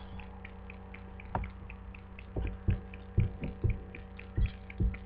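Several soft knocks and thumps from a plastic doll being handled, over a steady hum and a faint light ticking about four times a second.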